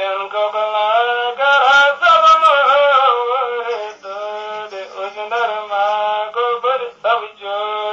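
A man's voice chanting a devotional song in long, wavering melodic phrases, with brief breaks between them.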